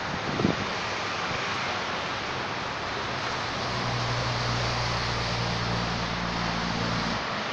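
Steady outdoor background hiss, with a brief knock about half a second in. A low steady hum sets in about halfway and stops shortly before the end.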